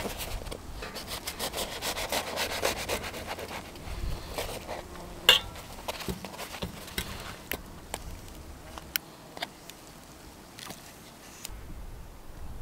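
A knife sawing through a soft bread bun with quick back-and-forth strokes for about three seconds, followed by scattered light clicks and taps, the sharpest about five seconds in.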